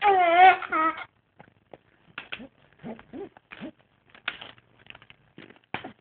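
A 4-month-old baby's loud coo with a wavering pitch at the very start, then a second shorter one, followed by quieter small grunts and clicks of breath and mouth.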